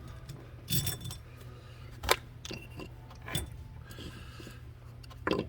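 Several light clicks and knocks of a plastic hummingbird feeder being handled, spaced a second or so apart, over a steady low hum.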